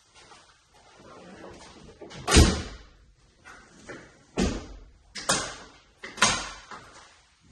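Four heavy thumps with short ringing tails, the first about two seconds in and the loudest, the others following at intervals of about a second, with fainter knocks between them.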